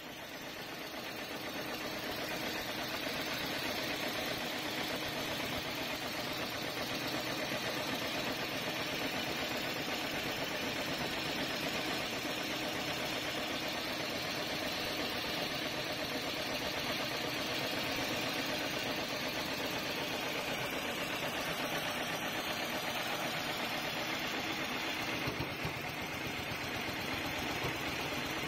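FOXSEW FX5020H extra heavy duty programmable pattern sewing machine running, its needle stitching a pattern through thick webbing strap. The machine sound builds over the first couple of seconds and then holds at a fast, steady rate.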